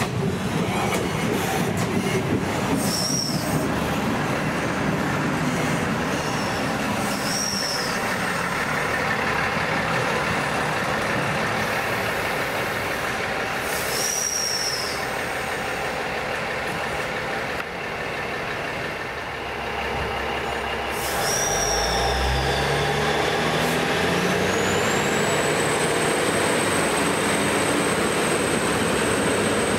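Endeavour-class diesel railcar set running in along the platform, with several short, high squeals from the wheels or brakes. About two-thirds of the way in, its underfloor diesel engines rev up with a rising drone as it pulls away, and a high steady whine rises in and holds.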